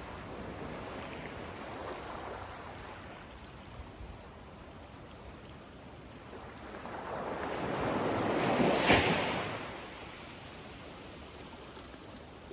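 Small waves lapping on a sandy shore of calm water. A gentle wash comes in near the start, then a larger wave swells in and breaks on the sand about nine seconds in before fading away.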